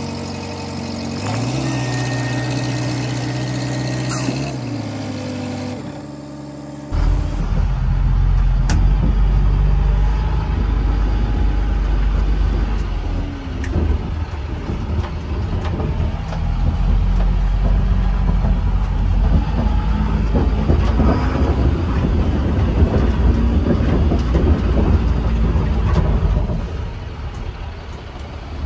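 P&H crane's engine running, briefly sped up for a few seconds. It then gives way to the M1089A1 military wrecker's diesel engine, heard loud and rumbling from inside its cab as the truck drives.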